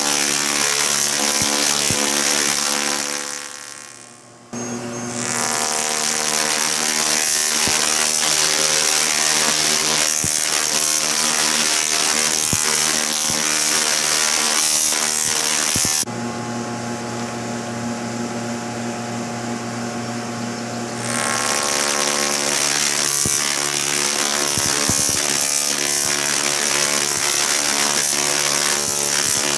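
Large dual resonant solid state Tesla coil (DRSSTC) firing, its arcs making a loud, steady, pitched electric buzz. A few seconds in the buzz fades and stops for about a second and a half, then starts again. About sixteen seconds in it turns duller and quieter for about five seconds, then returns to the full buzz.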